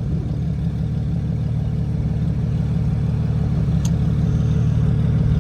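Jeep engine idling steadily, a low, even hum.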